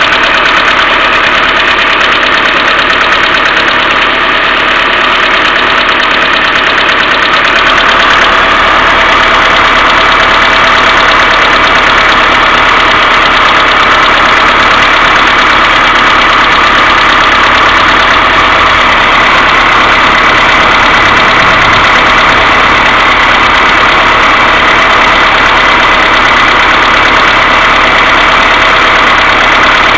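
Mercedes A-Class W168 1.6 petrol four-cylinder engine idling cold with a rapid, steady ticking knock from the valve train, typical of worn hydraulic valve lifters, over a continuous hum that the owner puts down to the hydraulic timing-chain tensioner needing cleaning or replacing. It gets slightly louder about eight seconds in.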